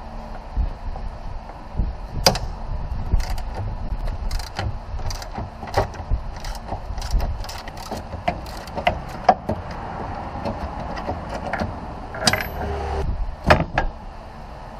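Irregular metallic clicks and clanks of hand tools being worked on a vehicle, over a low steady rumble.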